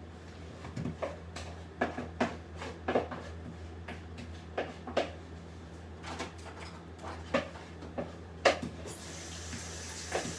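Spatula scraping and knocking against a mixing bowl as potato salad is scooped out into a serving bowl: a dozen or so irregular short knocks and scrapes, the loudest a little over eight seconds in. A steady hiss begins near the end.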